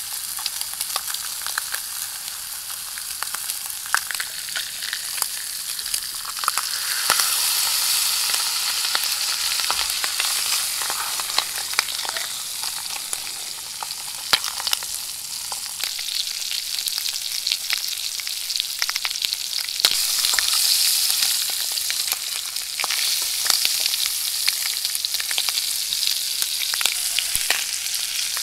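Cutthroat trout fillets sizzling in a frying pan on a camp stove, a steady hiss full of small crackles and pops that swells louder a couple of times.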